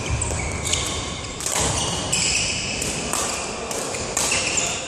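Court shoes squeaking on a sports-hall floor with landing footfalls as a badminton player moves and lunges: a string of short, high squeaks, several a second, over thuds of steps.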